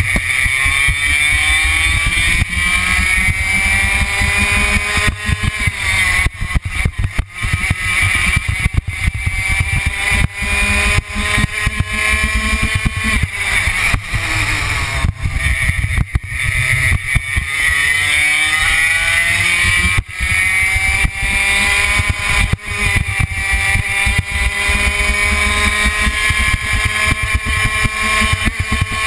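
Racing kart engine under full throttle on a lap, its pitch climbing steadily down each straight and falling away sharply four times as the driver lifts off for the corners.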